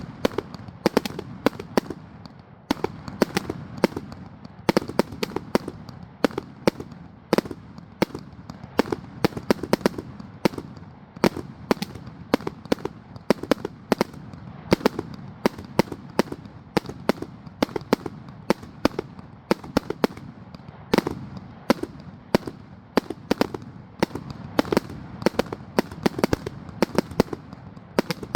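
Raccoon Fireworks RA143046 100-shot 1.4G consumer fireworks cake firing: a steady rapid series of sharp shots and bursts, several a second.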